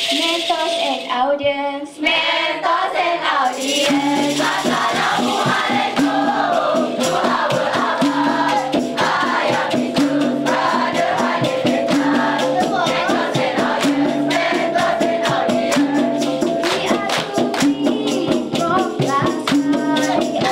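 Dikir barat group singing: a lead singer on a microphone with a chorus of voices, over hand percussion that keeps a quick, steady beat from a few seconds in.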